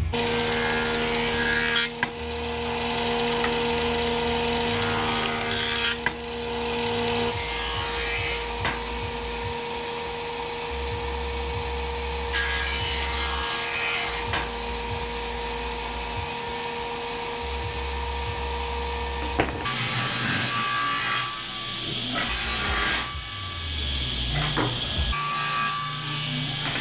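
Power woodworking machines sawing pallet-wood boards, with background music running under them.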